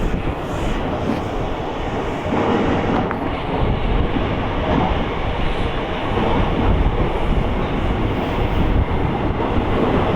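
A train running past on the rails, with a steady rumble of wheels on track that holds throughout.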